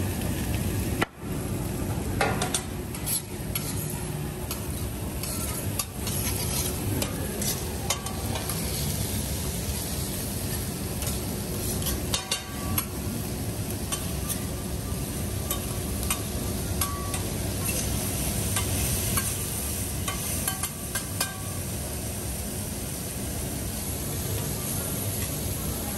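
Food sizzling on a steel teppanyaki griddle, with metal spatulas scraping and clicking against the flat-top again and again.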